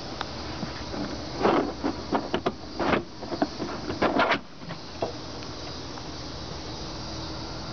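Cargo floor board of a car's boot being lifted and moved by hand: a quick run of knocks, rustles and plastic clatters for about three seconds, a last click, then a steady hiss.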